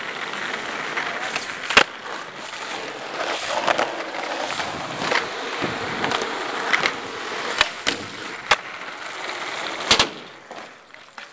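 Skateboard wheels rolling on concrete, broken by a series of sharp clacks of the board popping and landing. The loudest clacks come about two seconds in and about ten seconds in, and the rolling dies away after the last one.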